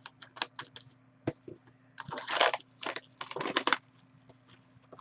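Trading-card box packaging being opened by hand: a run of small clicks and crinkles, with two short rustling tears of wrapper or cardboard about two and three and a half seconds in.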